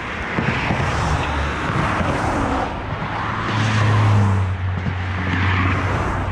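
Cars passing on the road across the bridge: tyre noise swelling and fading, loudest about four seconds in with a low engine hum.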